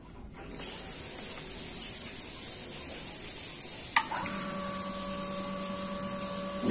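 Water hissing steadily through a just-opened tap, then about four seconds in a sharp click as the pressure switch trips and a Hitachi CT-P250F jet water pump starts and runs with a steady, smooth hum: the pump cutting in on demand, working properly with its air charger assembly replaced.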